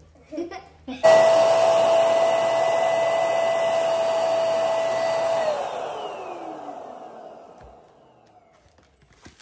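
Electric balloon pump switched on with a sudden start, running at a steady whine for about four seconds, then switched off and winding down with a falling pitch until it fades out.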